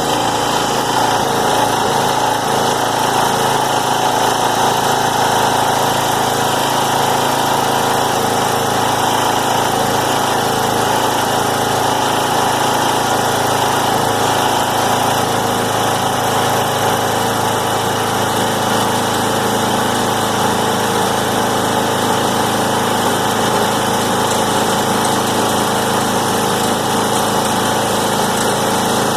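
Small gasoline engine on a recycling baler running steadily at a constant speed, with no change in pitch or load.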